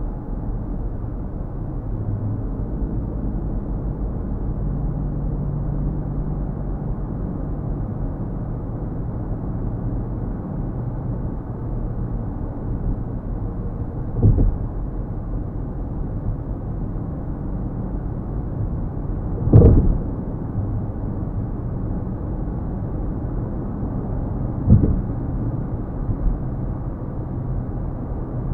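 Hemi V8 car cruising at highway speed, heard from inside the cabin: a steady low engine and road rumble. Three short thumps break it, the loudest about two-thirds of the way through.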